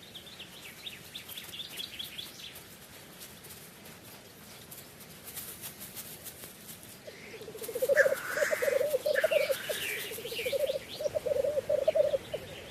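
Faint small-bird chirps, then from about seven seconds in a black grouse male's bubbling lek song in repeated rolling phrases, with a loud hissing call about eight seconds in.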